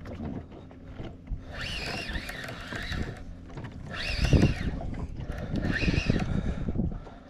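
Wind and water noise around a small boat on open water. Three short, wavering whine-like tones come through about a second and a half, four and five and a half seconds in.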